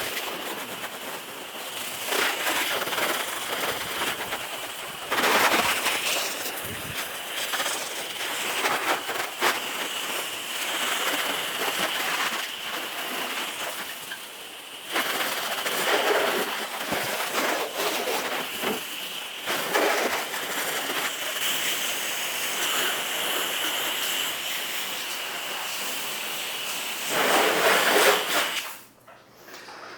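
Water from a garden hose spraying onto a car to rinse it: a continuous hiss that rises and falls in loudness and stops shortly before the end.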